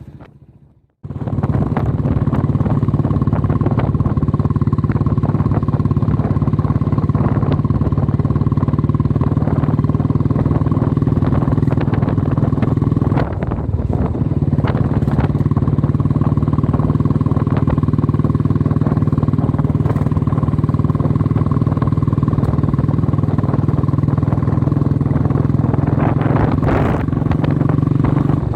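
Vehicle engine running steadily while driving along a road, starting abruptly about a second in. There is a brief dip in the engine sound about halfway through.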